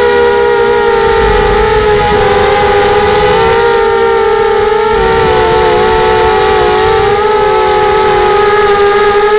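FPV racing quadcopter's brushless motors and propellers whining steadily, several close pitches wavering slightly up and down as the throttle shifts.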